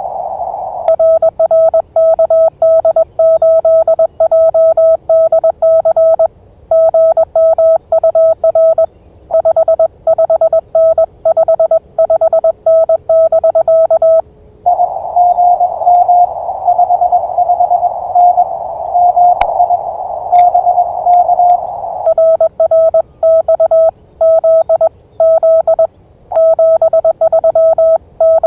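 Morse code (CW) on an amateur radio transceiver: a clean, high-pitched keyed tone sends quickly, the operator's own sidetone. Past the middle, for about seven seconds, another station answers in Morse, a slightly higher tone heard through the receiver's narrow-filtered hiss. Then the operator's sending resumes.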